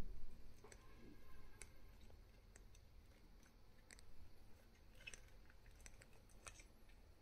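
Faint, scattered sharp clicks and scratches as a giant centipede and a long-legged arachnid struggle on sand against a plastic enclosure wall, with a dull low bump at the very start.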